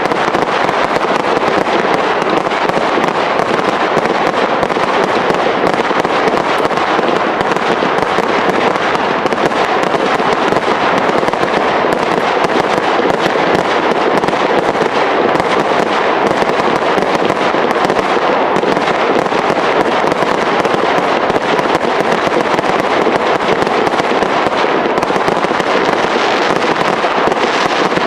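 Professional fireworks display: a dense, steady crackle of many overlapping small pops that goes on without a break.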